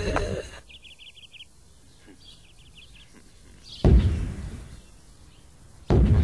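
Heavy booming thuds of a giant tyre bouncing on a road, one dying away at the start and two more about two seconds apart near the end. Between them a bird gives two short, rapid high trills.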